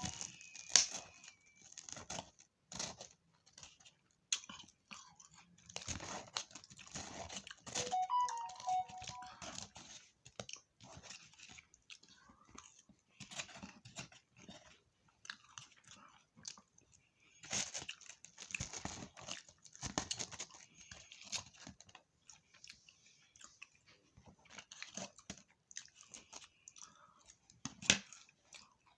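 Chewing and crunching of fried fish and tater tots, in irregular bouts of crackly bites with pauses between them.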